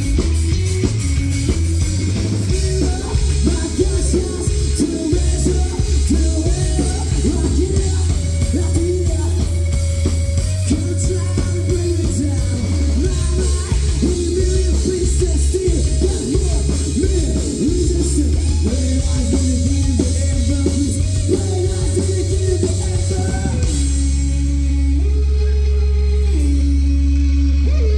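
Live rock band playing: drum kit and electric guitars over bass, loud and dense. Near the end the drums drop away, leaving sustained guitar chords that step up and down.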